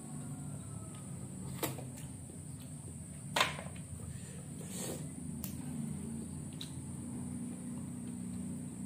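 Boiled mangrove clam shells clicking against each other as they are handled and pried apart by hand: a handful of short sharp clicks, the loudest about three and a half seconds in, over a steady low hum.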